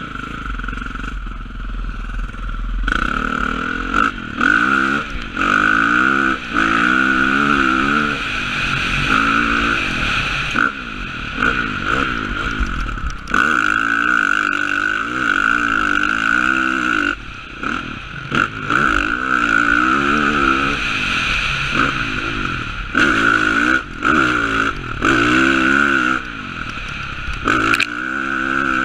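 Dirt bike engine heard from the rider's helmet, revving up and easing off over and over as it accelerates and rolls off the throttle around a motocross track, its pitch repeatedly rising and dropping back.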